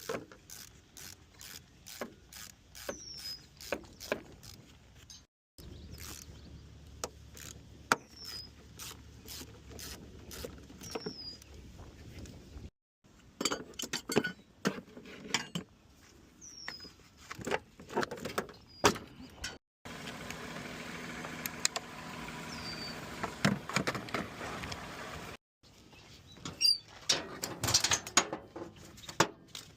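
Sharp metallic clicks and clanks from car-hauler trailer work, cut together from several short clips, with a few short high chirps among them. About two-thirds of the way in, a stretch of steady mechanical running noise takes over for a few seconds before the clanking resumes.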